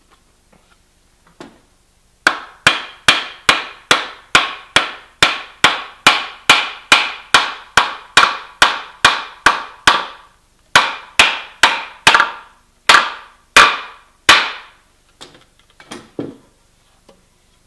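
Wooden mallet striking a timber to drive the two halves of a hand-cut Japanese scarf joint together. It gives a steady run of sharp knocks, about two to three a second, starting about two seconds in, with a brief pause partway through. A few light taps follow near the end.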